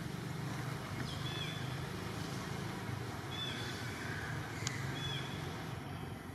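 Outdoor ambience: a steady low hum, with a few short high chirps and one sharp click about two-thirds of the way in.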